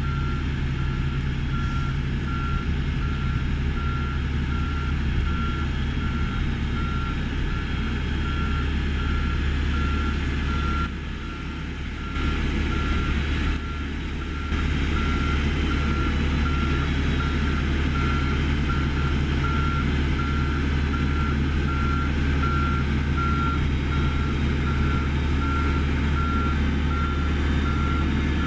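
Komatsu GD555 motor grader backing up while spreading aggregate: its reverse alarm beeps steadily at an even pace over the steady drone of the diesel engine. The engine sound drops briefly twice near the middle.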